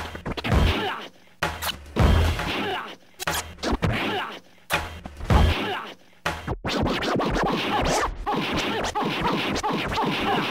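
Turntable scratching: vinyl records pushed back and forth under the stylus, chopped into short stop-start bursts with sudden cut-offs, over a drum groove. The chopping runs more continuously in the second half.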